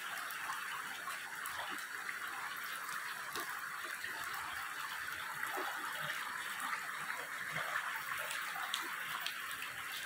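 Steady rush of falling water from a jungle waterfall, an even hiss with no let-up.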